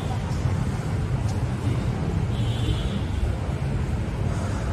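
Steady low rumble of background ambience with a faint hiss above it, and a faint high tone for about half a second a little past the middle.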